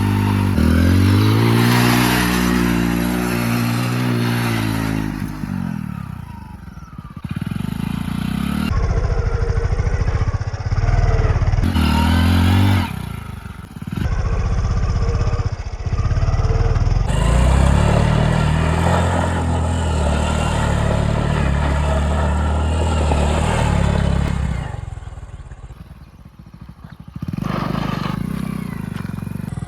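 Hero Splendor Plus motorcycle's small single-cylinder four-stroke engine revving and running hard, its pitch rising and falling. It comes in several short passages with abrupt cuts between them, and it eases off briefly a few times.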